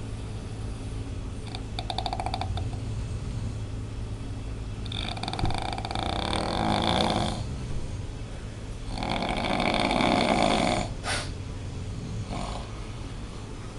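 A person snoring heavily: buzzing snores of about two seconds each, a few seconds apart, with a couple of shorter, fainter ones near the end, over a steady low hum.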